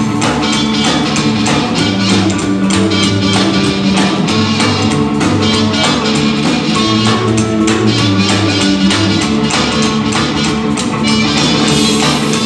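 Live blues band playing rocking blues: amplified harmonica over electric guitar, upright bass and drums, with a steady drum beat and a moving bass line.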